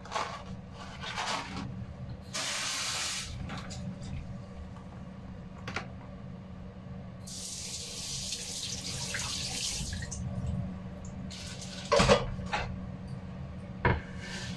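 Kitchen tap running into the sink while a long eggplant is rinsed: a short run of water about two seconds in, then a longer one for about three seconds from the middle. Near the end come a couple of sharp knocks.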